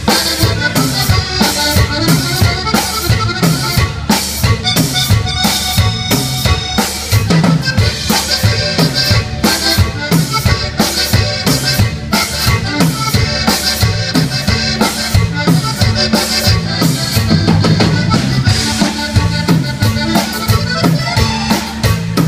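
Live Tejano band playing an instrumental stretch of a cumbia: accordion lead over drum kit and electric bass, keeping a steady dance beat.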